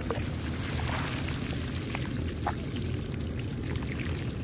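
A heap of small live shrimp flicking and jumping on a plastic sheet: a dense pattering crackle with scattered small clicks, over a steady low rumble.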